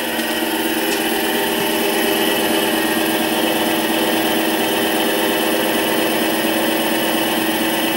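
Mini lathe running at high speed in reverse, a 3-48 tap spinning in its chuck as it hobs teeth into a 3D-printer extruder roller. A steady motor whine with several tones, holding even throughout.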